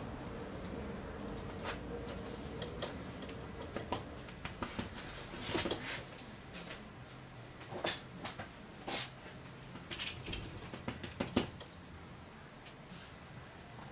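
Bristle brush dabbing and dragging thick oil paint across a canvas: irregular scratchy strokes and a few sharper taps and clicks, the busiest stretch in the middle. A faint steady hum sits under the first few seconds.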